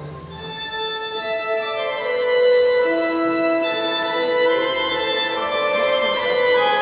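Music with sustained organ-like chords, swelling louder about two seconds in.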